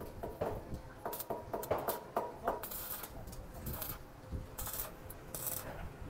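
Light metallic clinks and taps, about seven in quick succession, followed by a few short scraping sounds.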